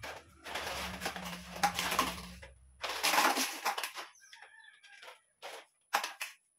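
Rigid plastic shoe-cabinet panels being worked together by hand: two stretches of scraping and rattling, then a few sharp snapping clicks near the end as parts lock into place.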